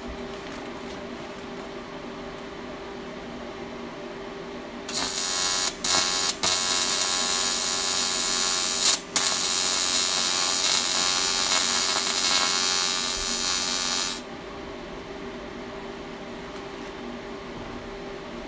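TIG welding arc on aluminum buzzing for about nine seconds as a bead is run without filler rod, cutting out briefly three times near the start. A steady hum sits under it before and after.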